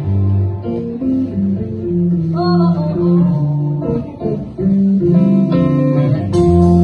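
Live band playing a guitar-led passage: electric guitar over bass and drums. About six seconds in the music turns louder and brighter.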